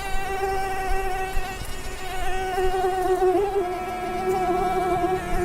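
A flying insect's steady buzzing whine on one pitch, wavering slightly.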